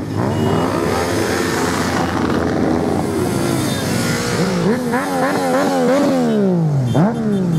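A column of motorcycles riding past, engines revving, with repeated rising and falling notes from several bikes in quick succession after the middle and one sharp rev near the end.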